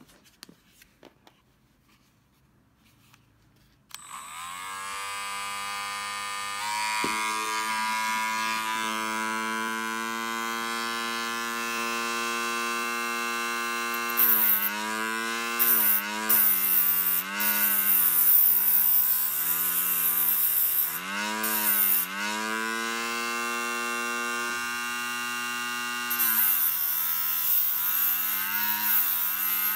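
Small rotary tool with a thin cut-off disc switched on about four seconds in, spinning up to a steady high whine. From about halfway it grinds the eye end of a steel sewing needle in repeated touches: a bright hiss comes and goes, and the motor's pitch dips each time the disc bites under load.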